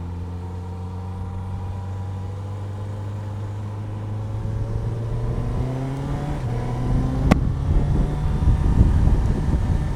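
Motorcycle engine running at a steady low note, then rising in pitch as it accelerates from about four seconds in, with a louder rushing rumble as speed builds. A single sharp click comes about seven seconds in.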